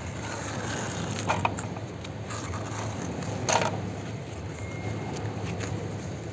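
Plastic toy vehicles being handled in sand, with a few sharp clicks and taps over a steady background hiss.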